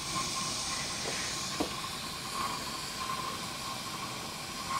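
Gas soldering iron's flame hissing steadily, with two faint ticks about a second and a half in.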